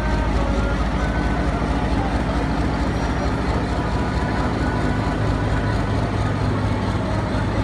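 Pakistan Railways diesel locomotive hauling a freight train of open wagons past at close range: a steady engine drone under the continuous rumble of the passing wagons.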